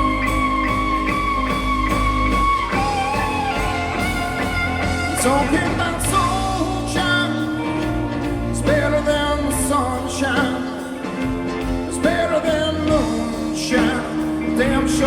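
Live blues-rock band playing: a lead melody that bends and slides over steady bass and drums.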